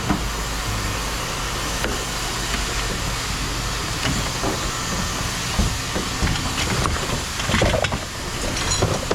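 A vehicle engine idling steadily under a constant hiss, with a few short knocks and clatters around the middle and near the end.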